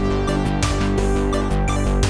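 Background music with a regular beat.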